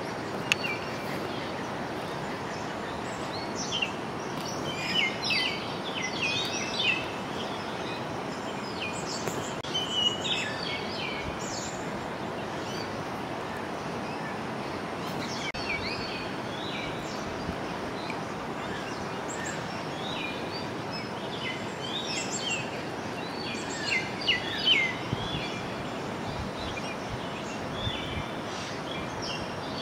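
Birds chirping in several short flurries over a steady rushing background noise.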